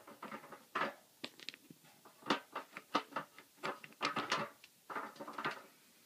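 Irregular clicks and knocks of hard plastic being handled, as the Beyblade stadium and toy parts are set in place.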